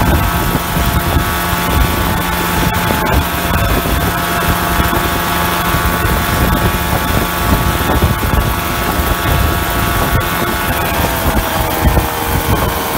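Homebuilt coaxial helicopter running on the ground, its outboard-boat engine driving the spinning rotors with a loud, steady drone. The engine note drops slightly about eleven seconds in.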